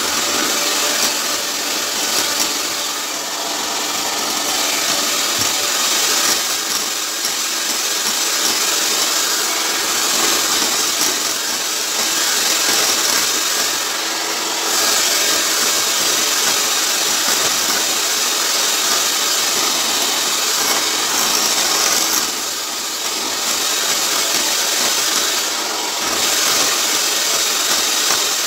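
Electric hand mixer running steadily, its beaters whirring through cake batter as flour is added a little at a time.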